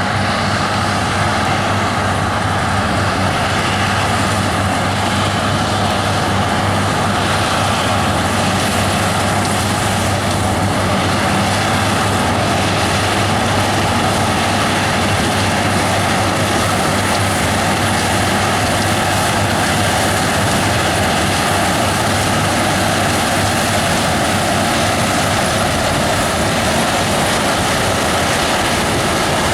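Claas Lexion 670 combine harvester running steadily while harvesting with a pickup front: a constant engine hum under a broad mechanical whir.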